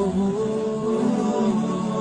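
Devotional song: a voice singing a slow melody in long held notes, with no beat.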